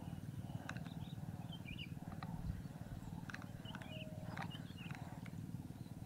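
Open-air marsh ambience: a steady low rumble with scattered faint high chirps and a few light ticks.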